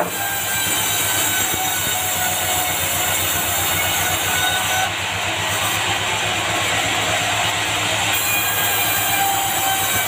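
Sawmill band saw running and cutting through dry bengkirai (yellow balau) planks, a steady dense sawing and machine noise.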